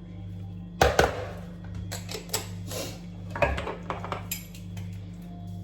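Kitchen clatter as spices go onto chicken in a tagine: a few sharp clinks and knocks of utensils and containers, loudest about a second in. Behind them are soft background music and a steady low hum.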